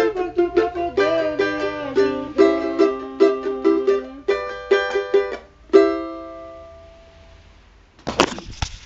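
Cavaquinho played with quick plucked notes and strums, ending on a final chord that rings out and fades. A short burst of clatter follows near the end.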